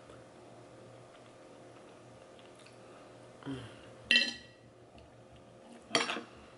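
Faint handling of crab shells, then two sharp clinks of tableware. The first, about four seconds in, rings briefly and is the loudest. The second, near the end, is a metal spoon striking the ceramic gumbo bowl.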